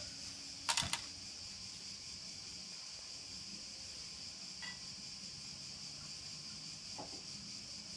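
Faint steady high hiss with a quick cluster of clicks about a second in and two light ticks later.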